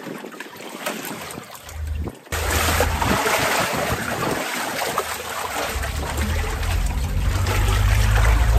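Water sloshing in a tarp-lined pickup-bed pool while the truck drives, with rushing noise that jumps suddenly louder about two seconds in. A strong low rumble builds in the second half.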